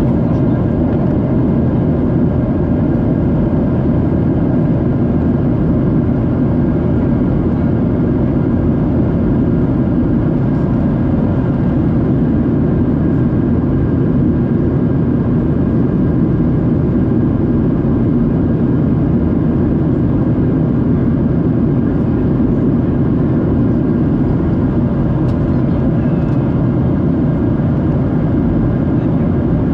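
Steady cabin noise inside a Boeing 737-700 in flight: the drone of its CFM56 engines and rushing airflow, with a few faint steady hum tones above it.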